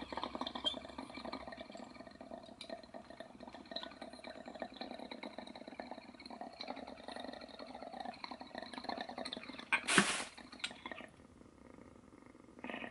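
Water bubbling fast and steadily in a small glass dab rig as a long hit is drawn through it. About ten seconds in there is a short louder burst of noise, and the bubbling stops soon after.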